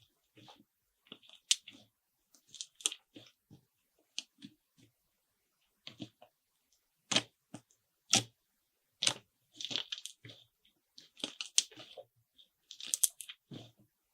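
Slime being worked by hand: short, irregular crackling and squishing noises with brief silent gaps between them.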